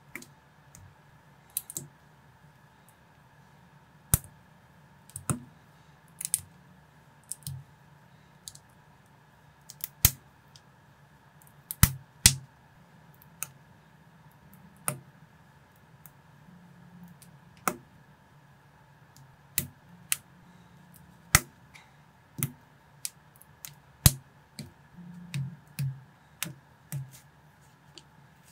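Small Lego-compatible plastic bricks clicking and snapping as they are pressed together by hand: sharp, irregular clicks every second or two, coming closer together near the end.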